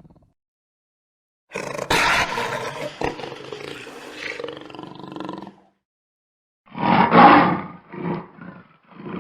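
Jaguar roaring and snarling: a long, rough roar starts about a second and a half in and lasts about four seconds. After a short pause comes a louder roar, followed by two or three shorter calls.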